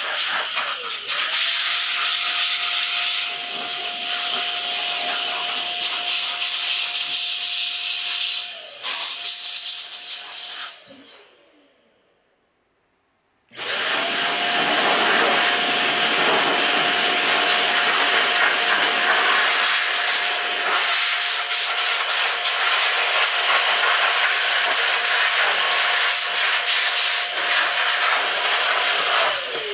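Handheld electric air duster blower running with a steady whine over the rush of air, blowing water off a washed graphics card's circuit board. About ten seconds in it winds down and falls silent, then starts up again a couple of seconds later and runs on.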